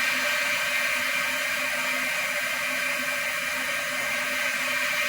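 A steady, even whirring hiss that stays level throughout, with a faint low hum under it.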